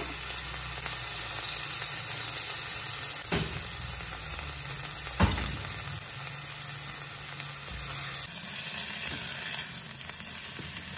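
Beef skin (kikil) pieces with anchovies and chilli sizzling in a frying pan, with two sharp knocks about three and five seconds in, the second louder. Near the end a spatula stirs the pan.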